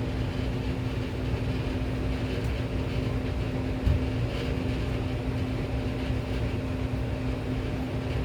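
Steady low mechanical hum with one steady pitched tone in it, and a single soft knock about four seconds in.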